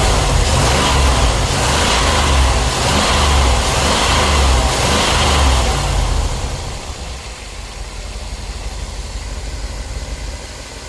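Car engine with distributor ignition running at raised revs for about six seconds, then dropping back to a quieter steady idle. The misfire is cured after a new ignition coil, cap, rotor, plugs and wires.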